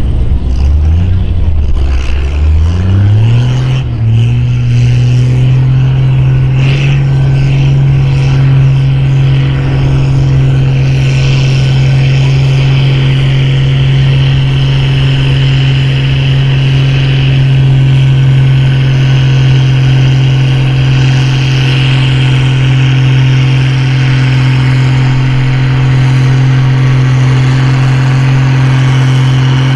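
Farm-class pulling tractor engine revving up over the first few seconds, then held at high, steady revs under full load down the track.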